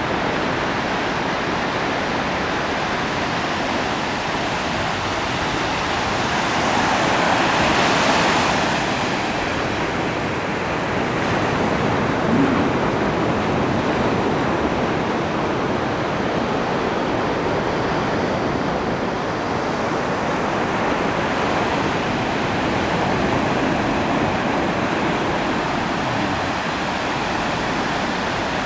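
Ocean surf washing onto a beach: a steady rush of waves, with one wave breaking louder about seven to eight seconds in and smaller swells later.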